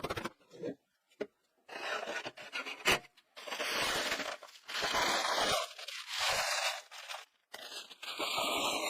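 Repeated rough scraping strokes, about five of them, each lasting around a second with short pauses between, and a single sharp knock about three seconds in.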